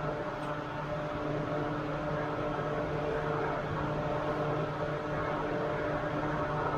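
An engine running steadily at a constant speed, an even hum that does not change.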